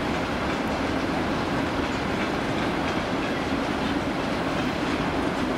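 ChS2T electric locomotive at the head of a passenger train, giving a steady hum and rush with no distinct knocks or squeals.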